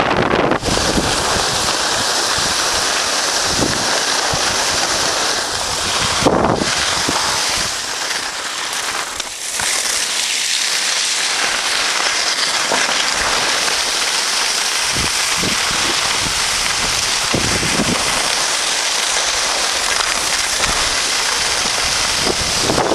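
Wind rushing over the microphone and skis hissing on packed snow while skiing downhill. A steady loud hiss with gusty low buffeting now and then, easing briefly around the middle.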